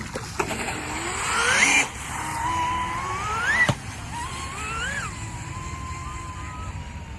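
6S electric RC boat's motor whining under throttle. Twice the pitch climbs steeply and cuts off sharply, over a rushing hiss. Then it rises once more, briefly, and settles into a steadier, fainter whine.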